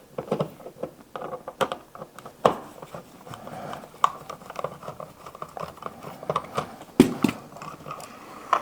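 A screwdriver working out the top and bottom mounting screws of an electrical wall outlet: scattered clicks and scraping of metal and plastic, with a sharp click about seven seconds in.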